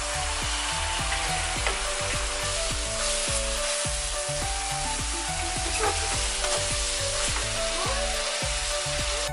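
Food sizzling steadily in hot oil as it is stir-fried in a pan, with short scrapes and knocks of the stirring utensil every second or so.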